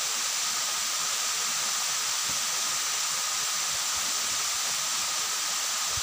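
Waterfall pouring down a rock face into a pool: a steady, even rushing noise with no breaks.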